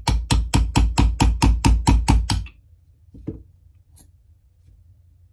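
Small hammer tapping a steel pin punch to drive the extractor pin out of an AR-10 (.308) bolt: a quick, even run of sharp metallic taps, about six a second, stopping about two and a half seconds in. A single softer knock and a faint click follow.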